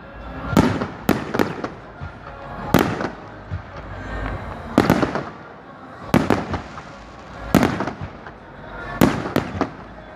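Fireworks shells bursting in the sky, about ten bangs, one every second or so and sometimes two or three in quick succession, each trailing off in an echoing crackle.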